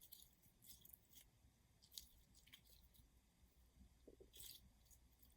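Near silence, with a few faint, scattered squishy clicks of jelly-like slime being handled.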